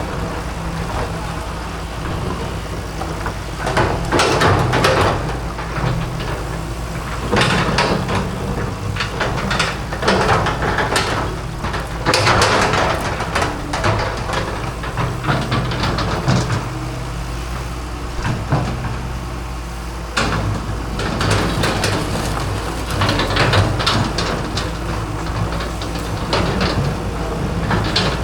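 Excavator's diesel engine running steadily, with repeated irregular bursts of scraping and crunching as the bucket works on concrete from a cement fence.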